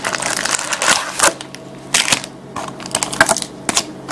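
Wrapped trading-card packs crinkling and rustling as they are taken out of a cardboard hobby box, in quick irregular bursts.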